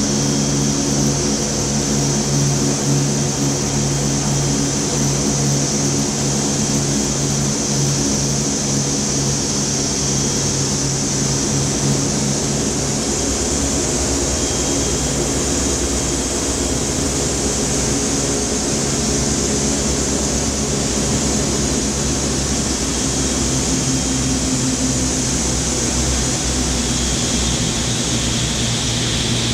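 Boeing B-29 Superfortress's four Wright R-3350 radial engines and propellers running in flight, heard inside the cabin as a steady drone with a low hum.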